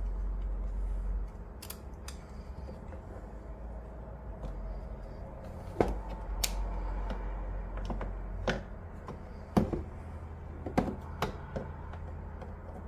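Irregular light clicks and taps of small plastic parts being handled and fitted, a few sharper knocks among them, over a low steady hum.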